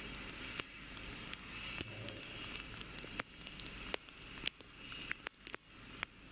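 Faint launch-pad ambience: a steady hiss with many scattered sharp clicks and crackles.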